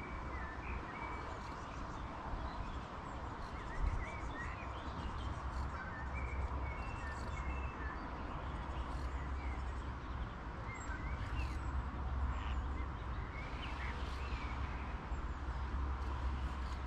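Small birds chirping on and off, short high calls scattered throughout, over a steady low rumble; a single knock about four seconds in.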